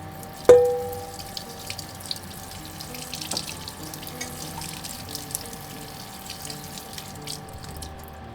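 Water running from a tap and splashing in a sink, with light clicks and splashes throughout. About half a second in comes a sharp clink that rings briefly. Soft background music plays underneath.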